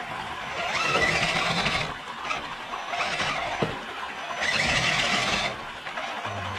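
Electric motor and geared drivetrain of an RC scale crawler whining in three bursts as the throttle is applied while it climbs, with a single sharp click between the second and third bursts.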